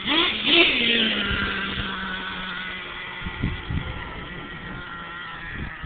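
Small nitro engine of a Redcat Caldera 3.0 RC monster truck revving in quick blips, then holding a steady high note that slowly fades. A few low thumps come about midway and again near the end.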